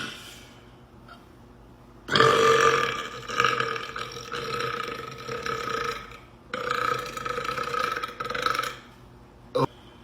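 A man burping: a long, drawn-out burp starting about two seconds in and lasting around four seconds, a second long burp right after it, and a short one near the end.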